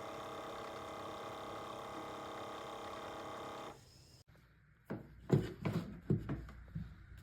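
Keurig K-Supreme Plus single-serve pod coffee maker running with a steady hum that stops nearly four seconds in. A few sharp knocks and clicks follow, like the machine or a cup being handled.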